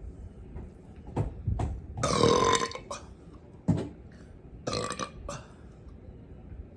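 A person burping on purpose: a long, loud burp about two seconds in, then a second, shorter burp near five seconds.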